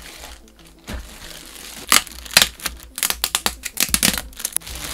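Clear plastic bag crinkling and crackling as hands pull it off a cardboard collectible-figure box: a soft rustle at first, then a rapid run of sharp crackles from about two seconds in until near the end.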